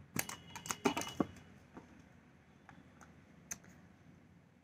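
Black plastic screw lid being twisted off a white plastic cosmetic jar: a quick run of clicks and crackles in the first second or so, then a few faint isolated ticks.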